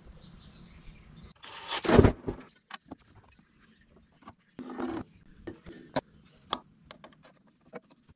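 Metal clicks and knocks from the hydraulic oil tank's cover, spring and filter being handled. A loud, short rush of noise about two seconds in and a weaker one near the middle.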